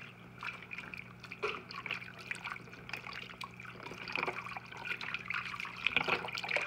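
Chicken broth pouring in a steady trickling stream from a carton into a slow cooker crock, landing on chicken and the liquid already in it.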